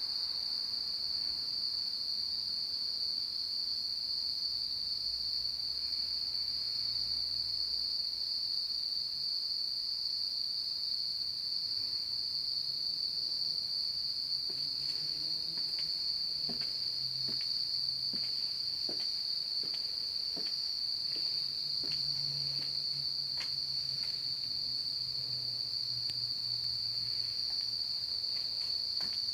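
A dusk chorus of insects: one steady, high-pitched trill that does not break. About halfway through, a scatter of faint clicks joins it.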